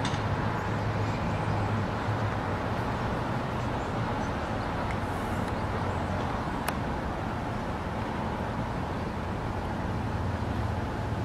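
Steady outdoor town background: a low hum of distant road traffic, with a single faint click about two-thirds of the way through.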